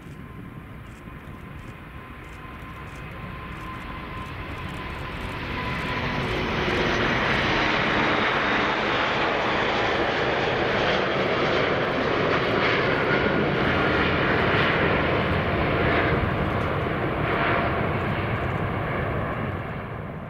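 Airbus A380's four jet engines at takeoff thrust as the airliner takes off, a dense roar that swells over the first several seconds as it passes close, holds loud, then begins to fade near the end.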